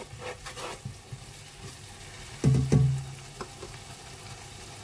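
Blended chilli paste with pounded dried anchovies sizzling in hot oil in a pot, with spatula stirring scrapes in the first second, frying until crisp. About two and a half seconds in, a brief louder low sound stands out.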